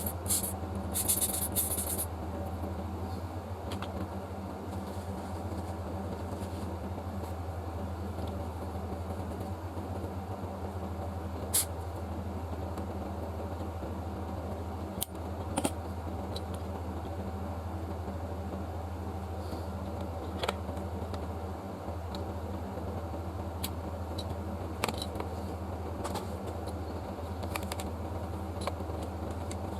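Steady low mechanical hum, with a few light clicks and taps scattered through it and a brief hiss near the start.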